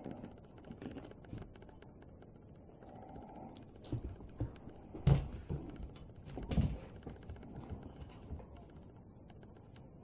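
Schnoodle playing with a toy bird: a run of light taps and scuffles from its paws and claws on rug and carpet, with two heavier thumps as it pounces or drops the toy, about five and six and a half seconds in.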